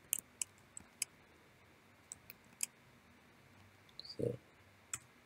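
Computer keyboard keys clicking faintly as a terminal command is typed: several separate keystrokes in the first second, a few more between two and three seconds, and a single keystroke about five seconds in. A short low sound comes about four seconds in.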